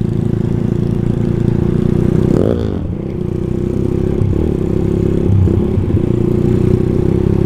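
Motorcycle engine running steadily while riding, with a brief dip in pitch and loudness about two and a half seconds in.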